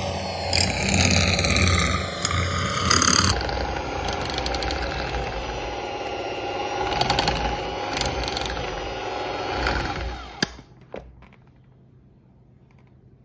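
Electric hand mixer running on high speed, its beaters whisking egg into thick choux pastry dough in a stainless steel saucepan, with scattered clicks of the beaters against the pan. The motor whine falls in pitch over the first three seconds, and the mixer cuts off suddenly with a click about ten seconds in.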